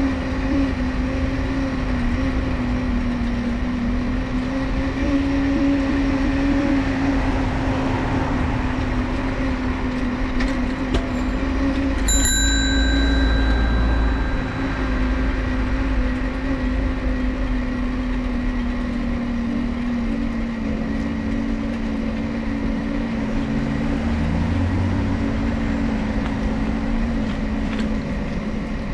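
Folding bicycle's dynamo whining steadily as it is ridden, its pitch wavering slightly with speed, over rumbling tyre and wind noise. About twelve seconds in, a bell rings once and fades.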